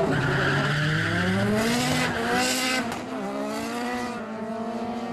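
Two street cars launching off a drag-strip start line and accelerating hard, their engines rising steadily in pitch. About three seconds in the pitch drops at a gear change, then rises again.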